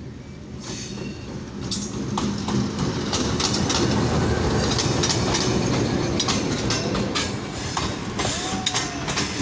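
Pakistan Railways diesel locomotive passing close by with its engine running, followed by its passenger coaches, their wheels clacking over the rail joints. The sound grows louder about two seconds in as the locomotive draws alongside.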